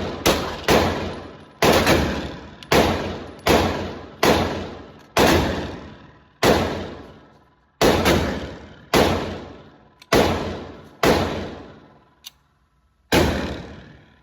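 Glock 17L 9mm pistol fired in a string of about eighteen shots at uneven intervals, some in quick pairs less than half a second apart, others more than a second apart. Each report is followed by a long echoing tail.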